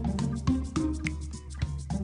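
Background music with a steady percussive beat, bass and short plucked or struck notes.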